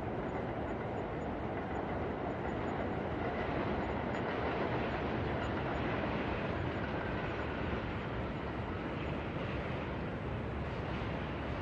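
New York subway train running through the station: a steady rumble that swells a little midway, with a faint high squeal above it.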